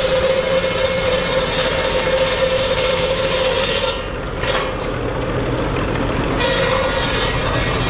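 Tractor-driven cordwood saw bench's circular blade cutting a log, with the Ferguson TE20's engine running under load beneath it. The cutting noise drops away about four seconds in and starts again about two seconds later, as a fresh cut begins.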